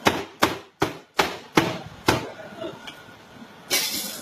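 Six quick knocks on a top-loading washing machine's drum, about two and a half a second, struck to loosen the drum from its shaft so that it can be lifted out. A brief hiss near the end.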